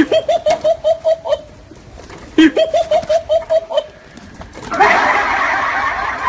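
Two bouts of rapid "ha-ha-ha" laughter, each about a second and a half long, followed near five seconds in by a loud steady noise.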